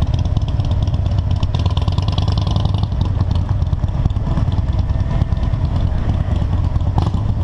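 Motorcycle engines running in a steady low rumble while cruising slowly, heard from on the bike.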